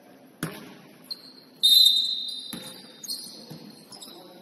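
Basketball game on a hardwood court: the ball thuds on the floor about half a second in and again after two and a half seconds, and sneakers squeak sharply on the boards. The loudest squeak comes about one and a half seconds in and fades over about a second, with shorter squeaks at other pitches around it.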